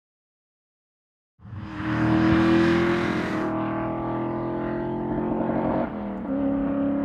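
Silent for about the first second and a half, then a 1963 Ford Falcon race car's engine running hard under load up a mountain hill climb, holding a steady note with a brief drop in pitch about six seconds in.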